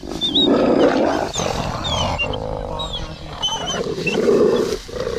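Two wolves growling at each other as they wrestle in rough play, in repeated harsh bursts.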